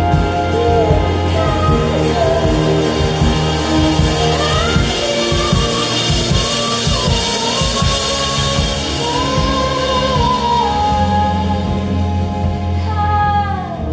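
A live band playing with violin, trumpet, saxophone and drum kit, loud and steady, with a melody line sliding up and down in pitch over held chords and a heavy low end.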